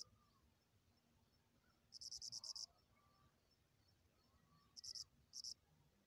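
Cricket chirping faintly: a high, finely pulsed chirp about two seconds in, then two shorter chirps close together near five seconds.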